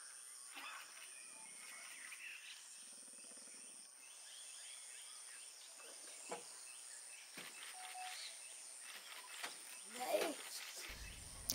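Faint outdoor quiet with a few scattered soft calls and short clicks, and a low hum that comes in near the end.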